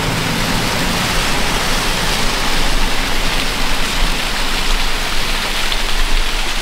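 Steady rushing hiss of falling water, like heavy rain, building a little louder over the first few seconds. A faint low hum of the car runs beneath it.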